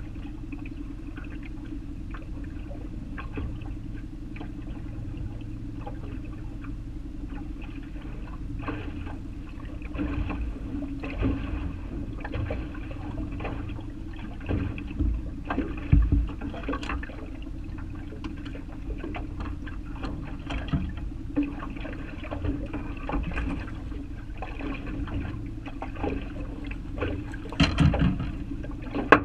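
Water slapping and gurgling against a boat's hull in short irregular knocks, over a steady low hum. Near the end comes a louder burst of splashing as a hooked spring chinook thrashes at the surface beside the boat.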